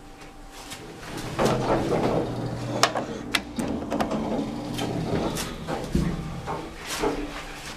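Mitsubishi elevator's two-panel centre-opening car doors sliding, a rumbling run broken by several sharp clicks, over a steady low hum.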